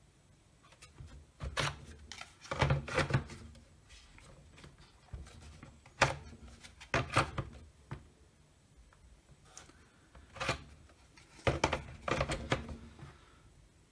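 Milwaukee M18 lithium-ion battery packs being slid onto and pulled off the plastic ports of a multi-bay charger: several clusters of hard plastic clicks and clacks, the sharpest about six seconds in.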